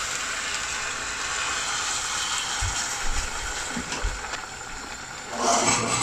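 Warm water poured into a hot pan of fried rice, lentils and vegetables, hissing and sizzling as it hits the caramelised base. A louder splash and hiss comes about five and a half seconds in, as another cupful goes in.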